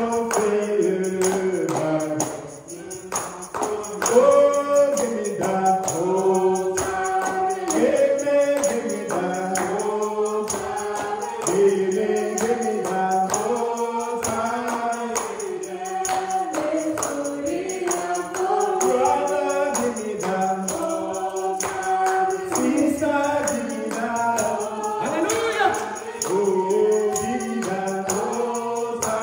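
Church congregation singing a gospel song together, with percussion keeping a steady beat.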